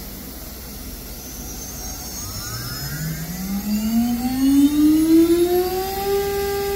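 Heliner CNC router spindle, fitted with an 8 mm tool, spinning up to maximum RPM. A whine starts about two seconds in, rises steadily in pitch and loudness, and levels off into a steady high whine near the end.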